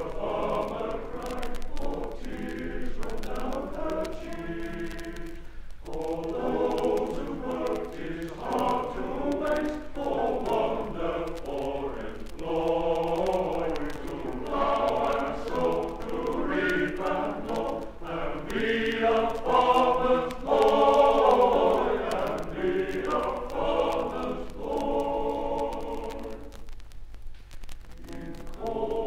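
Male voice choir singing a Victorian-era ballad in full harmony, phrase after phrase with short breaks between. It swells to its loudest about two thirds through, then pauses briefly near the end.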